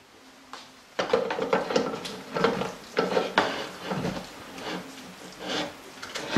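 A spatula scraping and knocking against a Thermomix's simmering basket as cooked spinach is emptied from it into the steel mixing bowl: a run of short scrapes and knocks, two or three a second, starting about a second in.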